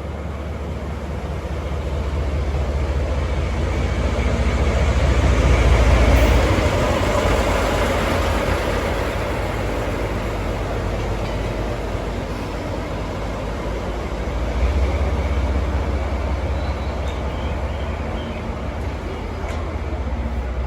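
DE10 diesel-hydraulic locomotive's V12 diesel engine working as the locomotive pulls away, a heavy low rumble that builds to its loudest about six seconds in, eases off, then swells again about fifteen seconds in.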